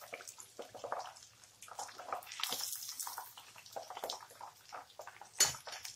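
Chicken pieces deep-frying in hot oil, sizzling and crackling with many small pops. A single sharp knock comes near the end.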